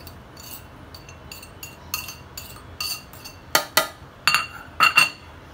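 Steel spoon clinking against a ceramic plate as spices are scraped off it into a steel chopper bowl: a run of short ringing clinks, the loudest in the second half.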